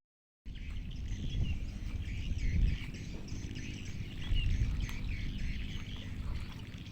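Small birds chirping over a steady low rumble outdoors; the sound cuts in about half a second in.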